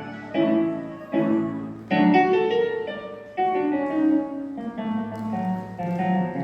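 Live instrumental music: a melody and chords played as struck notes that each fade after they sound, several new notes or chords every second.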